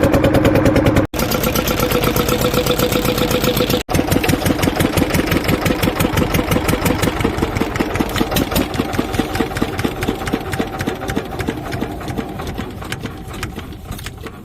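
Fishing boat's engine running with a steady, rapid chugging, cutting out for an instant twice early on and fading gradually over the last few seconds.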